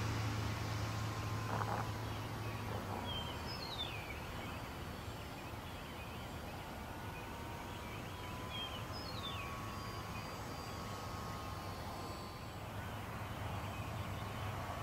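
A distant radio-controlled model airplane's motor, a thin steady whine that slowly drifts in pitch as the plane moves. A bird calls twice, about five seconds apart, each call a short note followed by a quick falling chirp.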